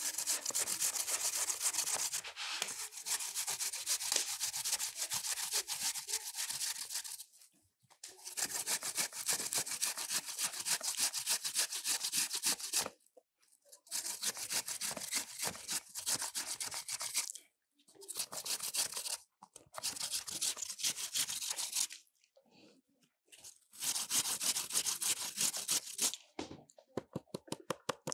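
Apples being grated on a hand grater: fast, harsh scraping strokes in runs of several seconds with short pauses between them. Near the end the scraping gives way to a run of quick light ticks.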